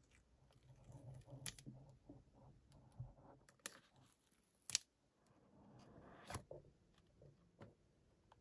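Quiet handling of a cardboard iPhone 13 Pro box as its lid is worked off: light scrapes and a few sharp clicks of fingers on cardboard, the sharpest click nearly five seconds in.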